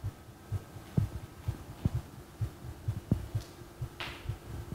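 Soft, irregular low thumps from a body moving on a yoga mat over a steady low hum, with a breath about four seconds in.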